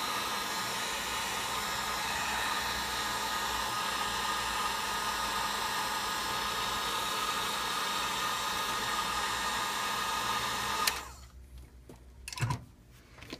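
Hot-air blower running steadily, heating the phone speaker's adhesive so the speaker can be lifted out without being pulled apart. It switches off abruptly about eleven seconds in, followed by a short knock.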